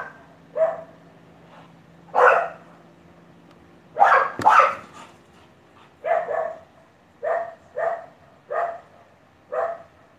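A dog barking in short single barks, about ten of them, spaced irregularly at first and then coming roughly once a second.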